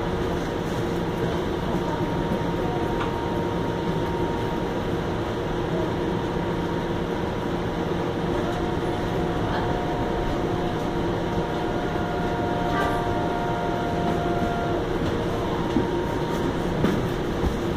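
Interior of a Flexity Outlook low-floor streetcar running: the steady rumble of the car, with a thin whining tone that comes in about halfway and stops a few seconds before the end.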